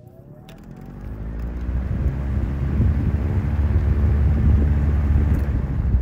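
1941 Emerson 16-inch oscillating table fan with aluminum blades running, its airflow rushing into the microphone with a low hum. A faint rising tone is heard in the first second, and the rush builds over about two seconds, then holds loud and steady.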